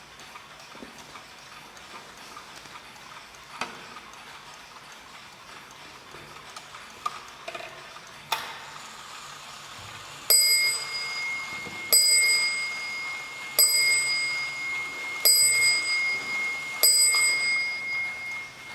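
Mantel clock striking five times on a small high-pitched bell, the strokes coming about a second and a half apart, each ringing on into the next. Before the strikes there is faint clock ticking and a sharp click.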